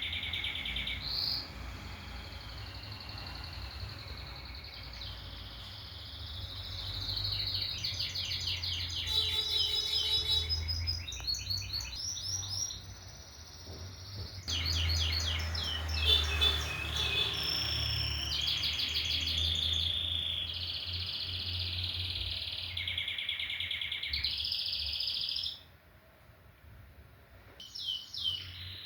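Domestic canary singing: long rolled phrases and rapid high trills that change from one phrase to the next, with a short break near the end. A steady low hum runs underneath.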